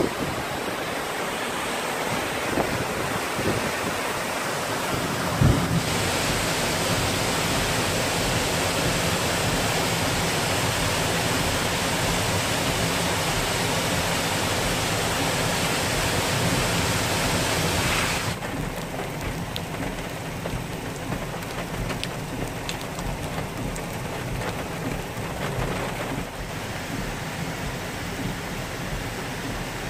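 Rain-swollen flash-flood water rushing steadily: waterfalls pouring down a rocky cliff and over a roadside barrier, then a muddy torrent tumbling over boulders. The sound changes abruptly about six seconds in, and again at about eighteen seconds, where it turns quieter and duller. There is a brief knock about five seconds in.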